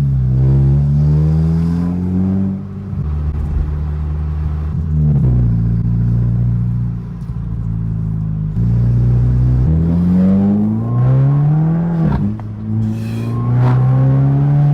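Tuned MK6 Jetta GLI 2.0-litre turbocharged four-cylinder, breathing through a 3-inch exhaust with a bullet muffler, pulling hard through the gears. The engine note climbs in pitch and drops sharply at each upshift, several times over.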